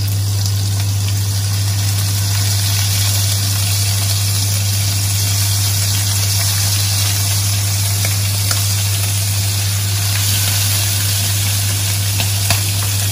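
Squid pieces sizzling in hot butter and coconut oil in a wok, a steady hiss of frying with the oil splattering. Under it runs a steady low hum, the loudest part of the sound.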